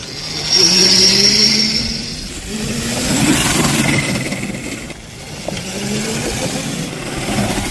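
Motor drive of a Tltboard Gorilla ride-on board whining and rising in pitch as it is throttled up to accelerate. This happens twice, with a rush of rolling noise in between.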